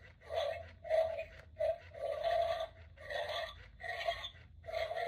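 Animated skeleton dog Halloween prop playing a recorded snarling dog sound through its small built-in speaker, in short irregular bursts, a little more than one a second.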